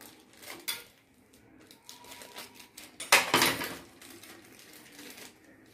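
Thin plastic wrapper of a processed cheese slice crinkling and rustling as the slice is peeled out by hand, with a louder crinkle about three seconds in.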